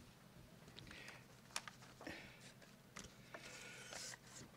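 Near silence: faint room tone with a few scattered small clicks and brief rustles.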